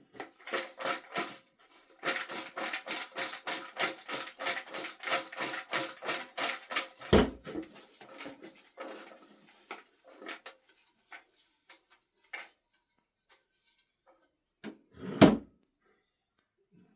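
Raffle ticket drum being turned: a fast run of regular clicks, about five a second, that slows and thins out to a stop. There is a heavy thump about seven seconds in and a louder one near the end.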